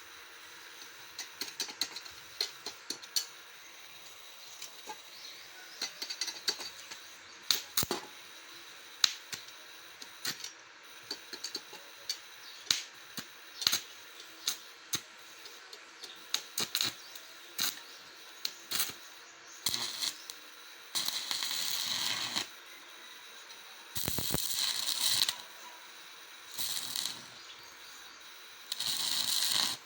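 Stick welding arc from a repaired Sunstar IGBT inverter welder on a test weld: scattered sharp crackles as the rod is struck to start the arc, then several steady crackling, sizzling runs of one to two seconds each in the last third. The arc holding shows the machine is working again after its blown diode was replaced.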